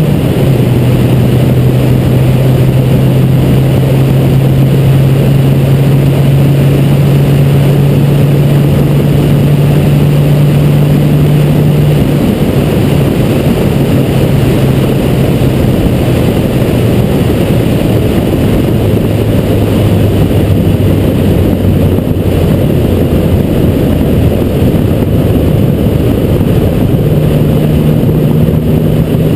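Porsche 911's flat-six engine running at a steady pace under heavy wind and road noise. The engine note steps lower around the middle and rises again near the end.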